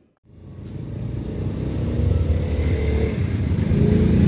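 Yamaha YBR 125 motorcycle's single-cylinder engine running on the move, starting a moment in and growing louder over the first two seconds, then holding steady.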